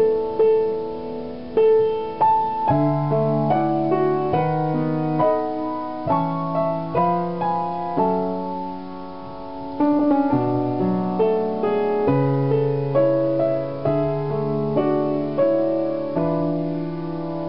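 Piano playing a slow instrumental passage of a ballad, single notes struck over held chords and fading after each stroke, with a brief lull about halfway through.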